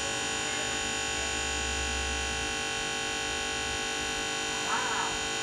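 Continuous electronic buzz, a steady drone of many tones at once, with a short warbling blip near the end: a computer's sound output stuck looping after a Windows blue-screen crash.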